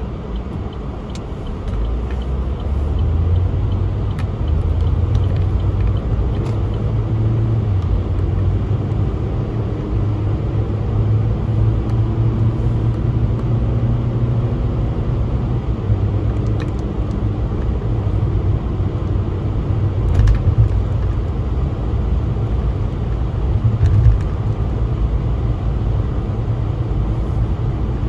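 A car driving: a steady low rumble of engine and road noise that grows louder over the first few seconds as the car picks up speed.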